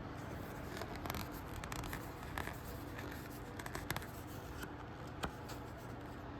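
Paper being handled: short rustles and light ticks as the printed inserts of a DVD set are leafed through, over a steady low hum.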